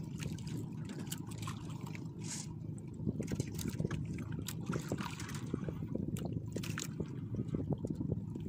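Sea water sloshing and trickling against the side of a small outrigger boat, with many small splashes and drips.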